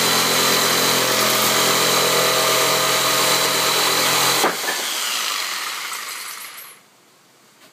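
An electric power tool's motor running steadily at full speed, then switched off about halfway through and winding down over about two seconds.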